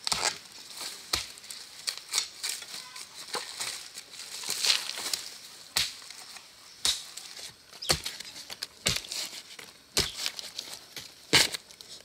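Irregular crackling and rustling of dry plant material, with sharp snaps every half second or so.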